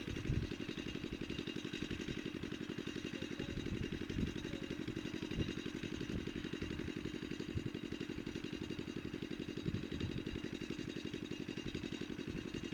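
A small engine running steadily off-screen, with a fast, even pulse, and a few soft low thumps.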